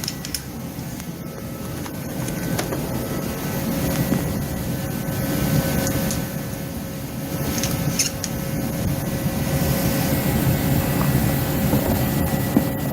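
A space heater running steadily with a constant hum and rushing noise, with a few light metallic clicks as bolts are handled and slid into the running board's slots.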